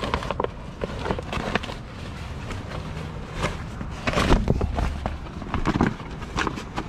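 Diesel engine running steadily under a string of irregular knocks and clanks as soil pallets are unloaded, the loudest clatter about four seconds in and another near six seconds.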